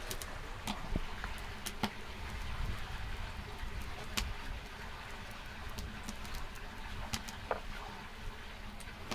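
Scattered light clicks and taps of a wooden spoon and clay spice bowls on a wooden tray while salt and spices are spooned out, over a low steady rumble.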